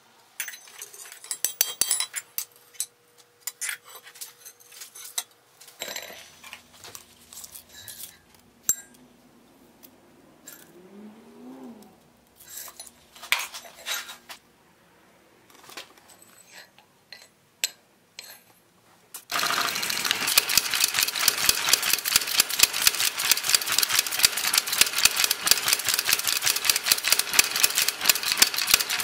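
Blacksmith's metal-handling sounds at the anvil: scattered clinks and knocks of iron and tools. About two-thirds of the way in, these give way to a fast, steady mechanical clatter of rapid clicks.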